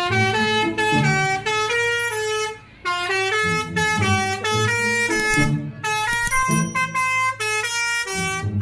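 Basuri multi-tone 'telolet' bus horn playing a tune as a string of short, loud notes, several tones sounding together, with a brief break about two and a half seconds in.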